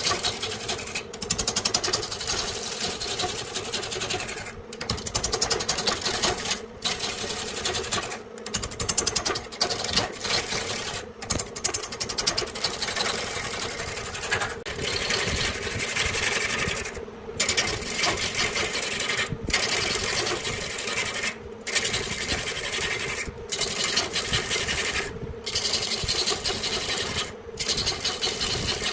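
Woodturning lathe running with a gouge cutting into a spinning glued-up wooden blank: a steady motor hum under a dense, rapid rattling hiss of the tool cutting. The cutting noise breaks off briefly every couple of seconds.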